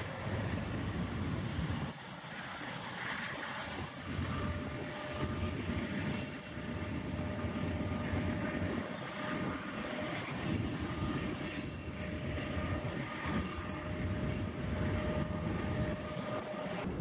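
Freight cars rolling past on the rails with a steady rumble of wheels on track. From about four seconds in, a thin steady wheel squeal rides over it as the cars take the curve.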